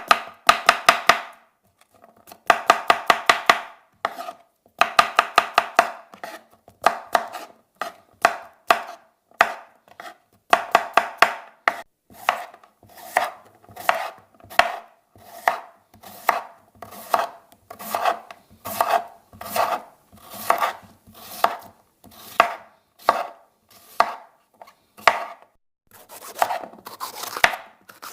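Knife-chopping sound effect: a blade striking a board, in quick runs of rapid strokes for the first dozen seconds, then slower, evenly spaced single strokes a little more than one a second, with another quick run near the end.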